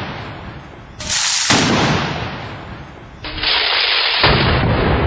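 Two loud blank gunshots of a ceremonial gun salute, about two seconds apart, each followed by a long rolling echo that fades away.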